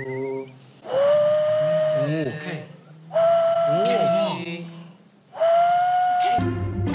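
Hand whistle: notes blown through cupped hands, three long held notes of about a second each, each sliding up slightly into pitch, playing a tune.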